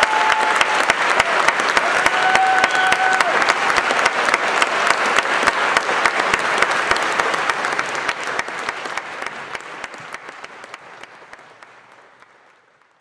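Theatre audience applauding, dense steady clapping with a held call from the crowd about two seconds in. The applause fades away over the last five seconds.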